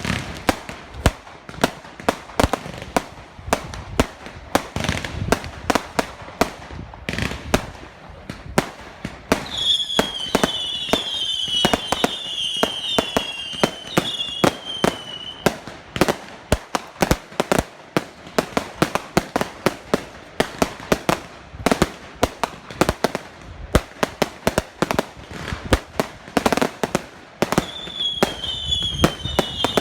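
Fireworks display going off: a rapid, continuous volley of sharp bangs and cracks. Twice it is joined by a run of short, high, falling whistles from whistling fireworks.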